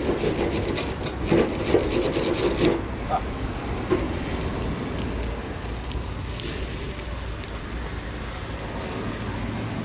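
Wooden skewers being handled and turned on a charcoal grill's metal mesh grate: a run of quick clicks and knocks in the first three seconds, then a few scattered ones, over a steady rushing background from the fire.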